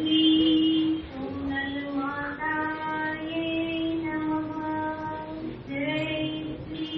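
A high voice singing an aarti hymn, unaccompanied, in long held notes of about a second each.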